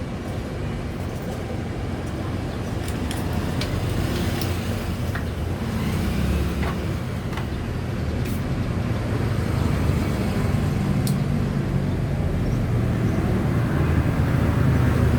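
A motor vehicle engine running steadily, growing slowly louder, with a few light clicks over it.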